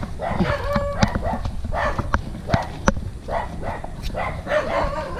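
A dog barking over and over, about two barks a second, with a few sharp clicks among the barks.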